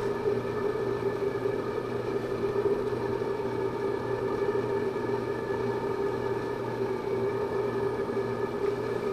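Main LP gas burner of a Fan Way Model 40 oven burning steadily, a constant hum with a noisy rush, as its air shutter is being adjusted for the air–gas mixture.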